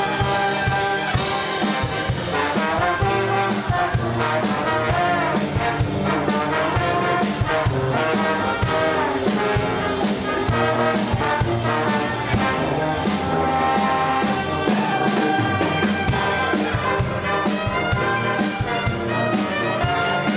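A live street band playing an instrumental tune, with brass horns (trumpet and trombone) carrying the melody over a steady drum beat.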